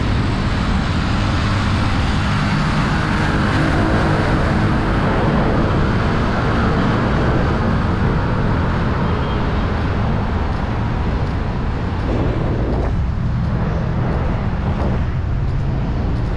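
Steady road traffic noise from cars passing along a busy city boulevard, a continuous rumble that swells and eases slightly.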